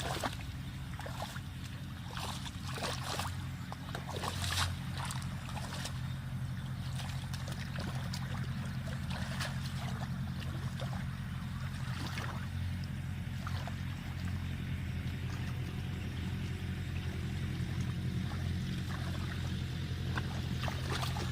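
A small boat engine running at a steady speed, with water splashing and dripping over it in the first few seconds.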